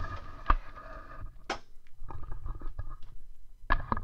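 Handling noise from a camera being picked up and moved by hand: a low rumble with scattered bumps, clicks and rubbing, the loudest knocks about half a second in and near the end.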